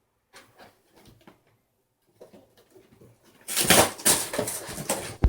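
Packaging being handled: a few light taps and rustles, then about three and a half seconds in, a loud burst of crinkling and rustling lasting a second and a half as a part is pulled from its wrapping.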